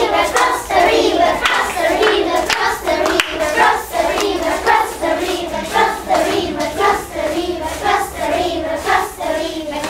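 A group of young children singing a song together, with hands clapping along throughout.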